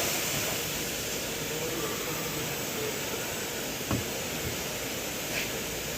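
Steady hiss and hum of factory machinery on a refrigerator production line, with a sharp knock about four seconds in and a few fainter clicks.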